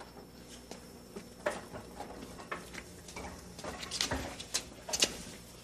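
Hands working at a car door, making a string of light, irregular clicks and taps that get sharper near the end.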